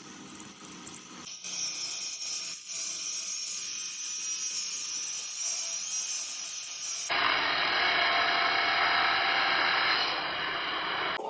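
Metalworking machinery running with a steady grinding, whirring noise and a few faint steady whines, cut abruptly to a different machine sound about seven seconds in.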